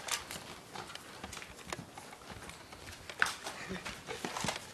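Irregular light clicks and taps, roughly two a second and none much louder than the rest, from players moving about with foam-dart blasters in hand.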